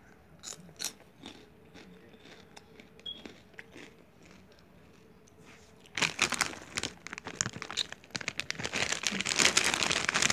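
Faint crunching of a snack being chewed, then from about six seconds in a foil snack bag crinkling as it is handled, loudest near the end.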